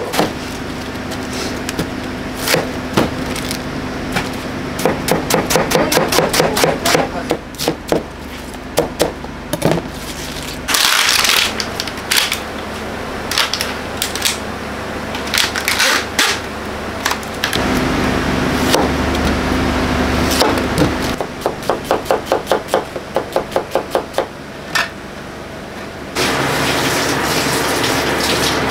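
Kitchen cooking sounds: runs of quick knife chops on a cutting board, several a second, over a steady low hum. There is a brief hiss about a third of the way in, and a louder steady rushing noise sets in near the end.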